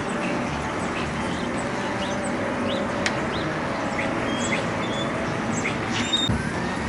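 Scattered short chirps and calls of songbirds around backyard feeders, over a steady background hum.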